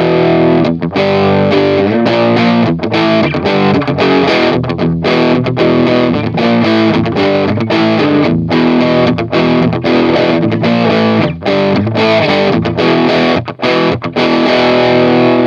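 Distorted electric guitar played through an M-VAVE Mini Amp with M-VAVE IR Box cab simulation, on a preset the player guesses to be a Marshall JCM800 voicing: a riff of chords and single notes with brief stops between phrases.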